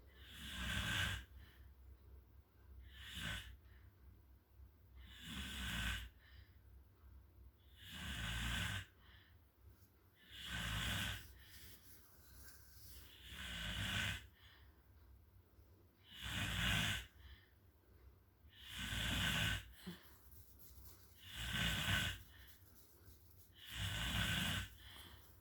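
A sleeping person snoring, very noisy: a rasping snore on each breath, about one every two and a half seconds, each lasting about a second.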